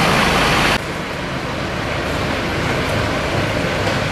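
Large mobile fire-service ventilation fan blowing with a loud, steady rush that cuts off abruptly about a second in, followed by the lower, steady sound of a diesel truck engine idling.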